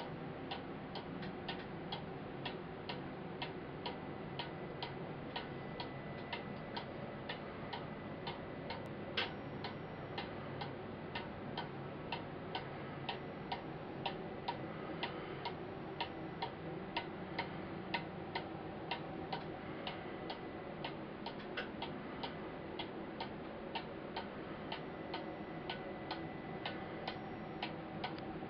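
Carved wooden hunting-style cuckoo clock with an eight-day mechanical movement ticking steadily as its pendulum swings, an even tick about two to three times a second.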